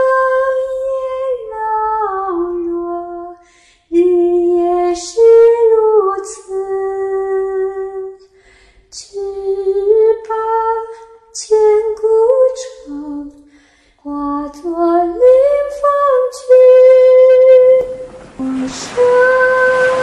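A woman singing a slow, gentle melody in long held phrases with short pauses between them, with almost no accompaniment. A soft hiss swells in near the end.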